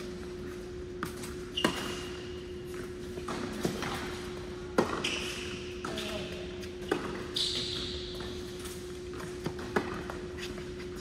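Tennis rally indoors: a tennis ball struck by rackets and bouncing on the hard court, sharp pops every two to three seconds, with short high squeaks after some hits and a steady hum underneath.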